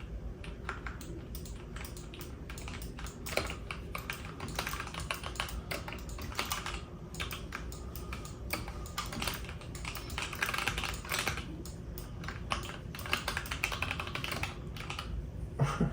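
Computer keyboard keys being pressed in a continuous, irregular clatter of clicks while playing a PC game.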